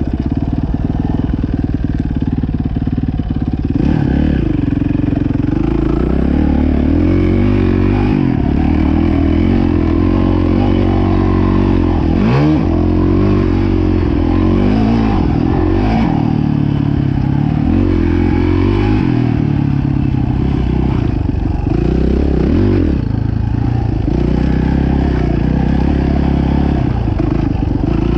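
Dirt bike engine being ridden, its note fairly steady for the first few seconds, then rising and falling again and again as the throttle is opened and closed through the gears.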